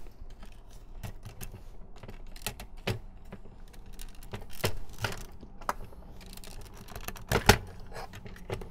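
Irregular light clicks and taps of hard plastic parts and a screwdriver as the internals of an opened Nerf SlingFire blaster are worked on. A louder double knock comes near the end.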